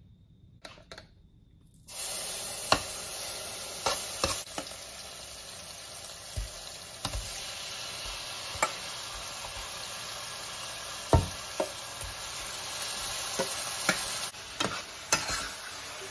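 Hot oil in a stainless steel pot sizzling as seasoned beef for stew is spooned in, starting suddenly about two seconds in and going on steadily. A metal spoon clinks against the bowl and pot now and then.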